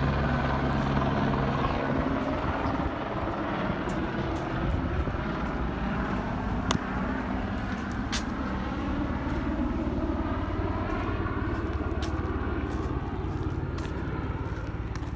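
Police helicopter circling overhead, its rotor and turbine making a steady rumbling drone that eases slightly toward the end, with a few sharp clicks over it.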